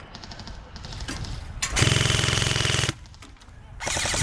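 Airsoft rifle firing on full auto: a burst of about a second, then a second, shorter burst near the end.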